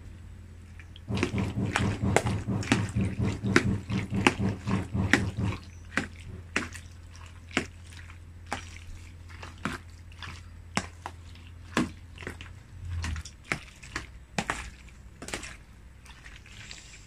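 Mayonnaise-dressed macaroni salad being mixed in a plastic basin: wet, sticky squelches and clicks, quick and dense for the first few seconds, then sparser and more spaced out.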